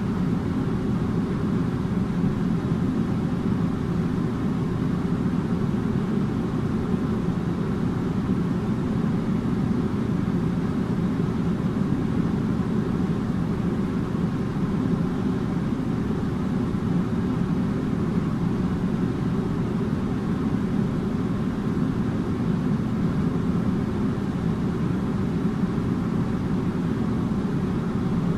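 Air conditioner running: a steady, even low hum and rushing noise that does not change.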